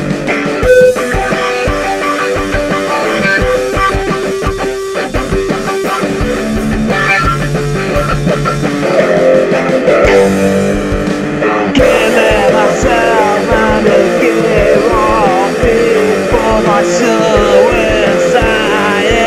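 Rock music with electric guitar and bass over a steady beat, with a wavering lead line entering about twelve seconds in.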